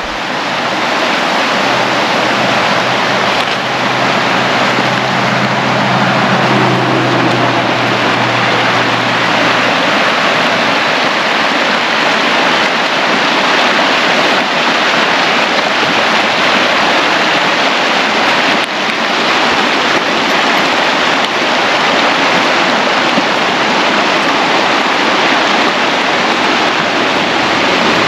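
Steady road and wind noise of a moving car, with a low engine hum under it for about the first ten seconds.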